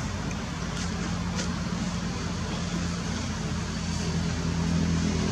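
A steady low engine hum over a constant background hiss, growing a little louder near the end.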